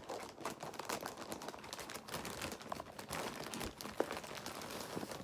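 Packaging crinkling and rustling as a package is opened by hand, with one sharper click about four seconds in.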